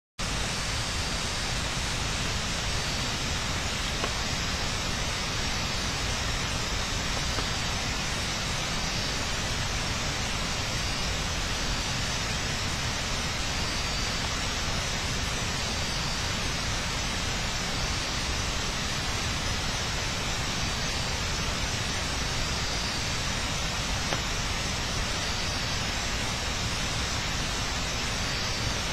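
A steady, even hiss with no distinct events, and a faint high-pitched pulse repeating about every second and a half.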